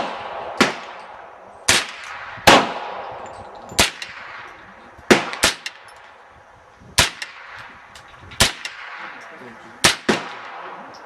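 AR-15 fitted with a Ciener .22 conversion kit firing .22 rimfire rounds in semi-automatic, about ten single shots at irregular intervals of roughly a second, each sharp crack trailing off in an echo.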